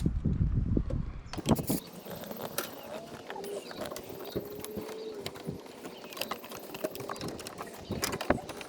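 Handling noise from a rubber upper radiator hose being worked onto its fitting by hand: a low rumble for about the first second, then scattered clicks and knocks.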